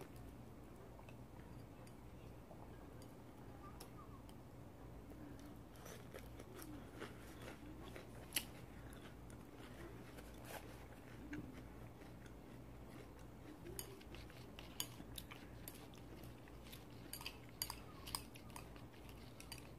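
Quiet eating sounds: chewing and scattered light clicks of chopsticks against a bowl, the clicks more frequent in the last few seconds, over a steady low hum.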